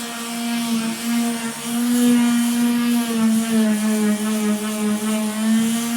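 Electric power sander running steadily against a pickup bed's painted body panel, its motor hum wavering slightly in pitch as it works along the body line.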